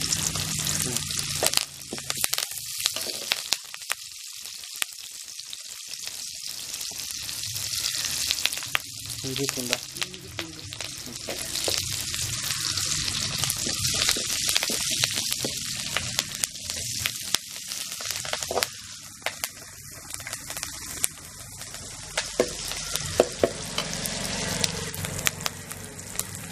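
Chopped shallots and curry leaves sizzling in hot oil in an aluminium kadai, with a metal slotted spoon scraping and clinking against the pan as they are stirred. The sizzle is loudest about halfway through, and a few sharp clinks of the spoon on the pan come near the end.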